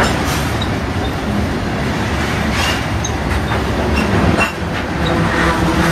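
Ballast hopper cars of a freight train rolling past: a steady rumble of steel wheels on rail with a few sharp clicks as wheels cross rail joints.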